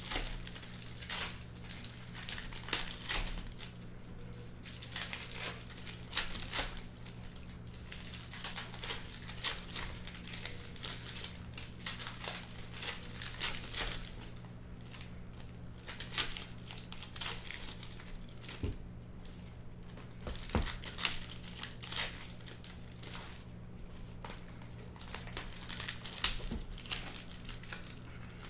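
Foil hockey card packs being torn open and crinkled by hand, a run of irregular sharp crackles and rustles. A steady low hum runs underneath.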